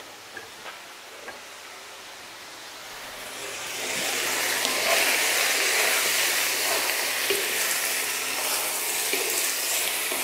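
Bok choy and basil stir-frying in a hot pan, turned with a wooden spatula. The sizzle is faint at first, with a few light clicks, then swells to a loud, steady hiss about three to four seconds in.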